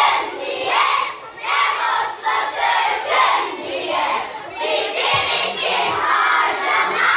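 A large group of children's voices together in unison, loud and rhythmic, in short phrases about once or twice a second.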